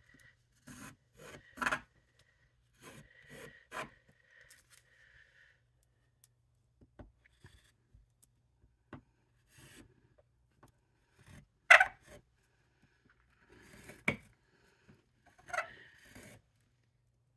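Cardstock being worked by hand: scattered short rubbing and scraping strokes, with two sharper clicks about twelve and fourteen seconds in.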